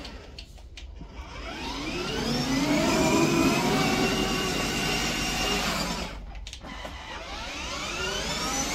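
Children's ride-on toy Lamborghini car revving. Its pitch rises over about two seconds and holds, drops off about six seconds in, then rises again near the end.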